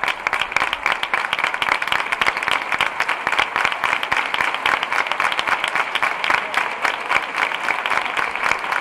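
A large crowd applauding steadily, with many hands clapping densely and continuously.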